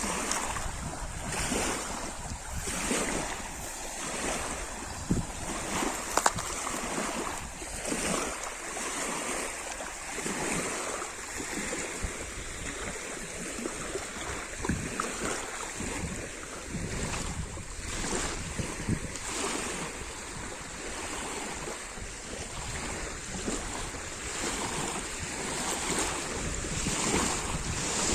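Lake water splashing in small waves: an uneven, continuous run of splashes with a few sharper slaps.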